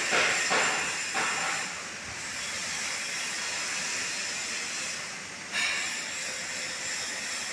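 Laser cutting machine's head cutting through a metal plate, the assist gas jet hissing steadily, with louder surges of hiss in the first second and a half and again about five and a half seconds in.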